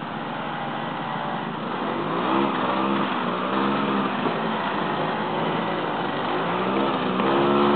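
Ski-Doo Elan snowmobile's small two-stroke engine (a 299 cc swap) revving up and down several times under load while the sled is worked out through the ice, then climbing and holding louder near the end.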